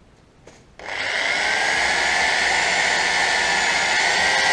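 Electric drill with a small bit running steadily, boring a hole through the metal outer casing of a differential pinion oil seal so a screw can be set in to lever the seal out. It starts just under a second in with a steady whine.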